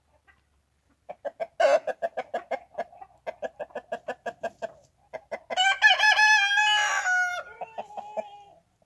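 Rooster clucking in a fast run of short clucks, then crowing once, a call of about two seconds that drops in pitch at the end, followed by a few short clucks.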